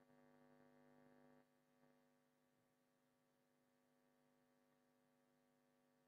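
Near silence: a faint steady electrical hum, slightly louder for the first second and a half.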